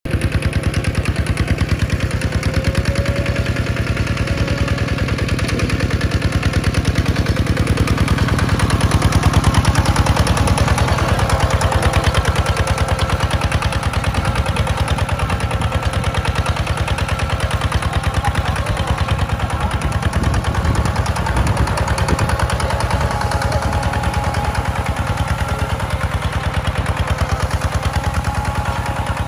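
Kubota walk-behind tractor's single-cylinder diesel engine running with a rapid, even beat as it pulls a plough through the soil under load.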